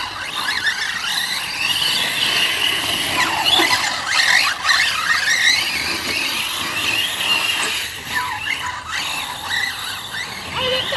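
Large-scale RC off-road trucks running flat out on a dirt track: a high, overlapping motor and drivetrain whine that rises and falls with the throttle.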